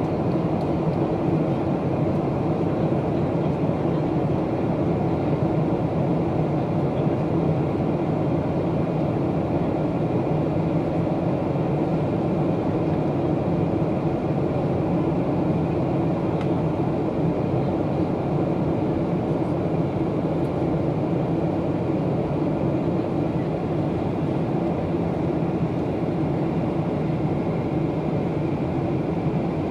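Steady cabin noise inside a Boeing 737 airliner in flight on descent: the even rush of engines and airflow, with a faint steady hum running through it.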